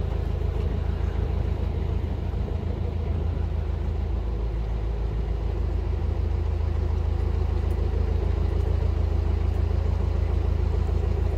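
Narrowboat's diesel engine running steadily under way, a low, even drone.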